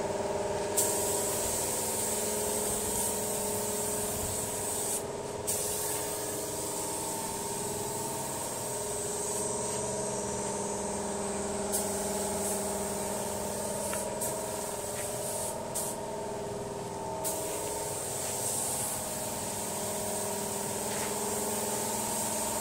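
Gravity-feed paint spray gun hissing as it sprays epoxy primer, in stretches broken by several short pauses, over the steady hum of an air compressor running.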